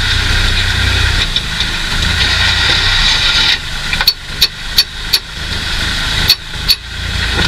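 Tractor diesel engine running steadily, easing off about halfway through. Six sharp knocks or clacks come over it in the second half.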